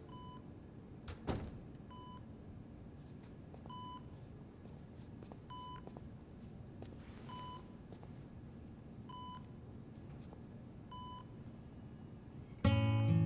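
Bedside patient monitor beeping in a quiet hospital room: a short high beep about every two seconds, seven in all. A door latch clicks about a second in, and guitar music comes in loudly right at the end.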